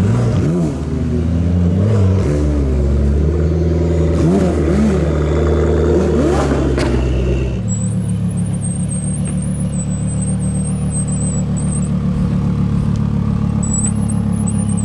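Car engine revved in a series of short blips, its pitch climbing and dropping several times, then settling at about seven and a half seconds into a steady low idle with a thin, wavering high whine over it.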